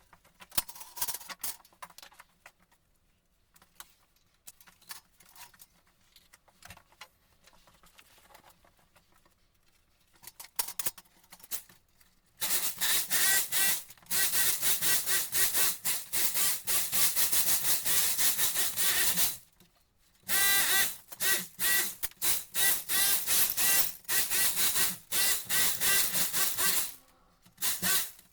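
Rasping strokes of a tool cutting through a wall to open a hole. The first twelve seconds hold only scattered light knocks. Loud rhythmic cutting starts about twelve seconds in and pulses a few times a second, with one short pause near the twenty-second mark.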